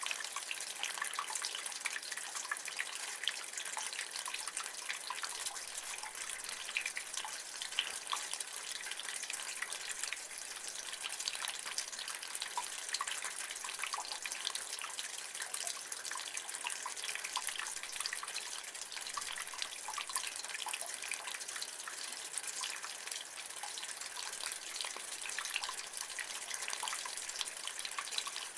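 Rainwater running and dripping from a gutter: a steady splashing patter with many small sharp drips, no change in strength.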